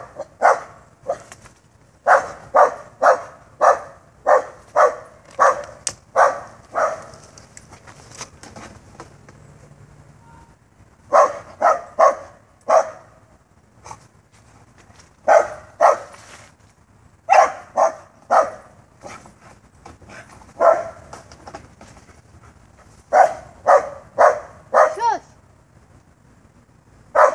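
A dog barking in runs of quick barks, about two or three a second, broken by pauses of a few seconds. The dog is barking at something that the owner thinks may be a squirrel.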